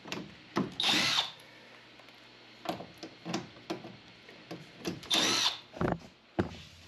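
Cordless drill whirring in two short runs, about a second in and again about four seconds later, backing screws out of a sheet-metal evaporator coil panel. Small clicks and knocks of handling come between the runs.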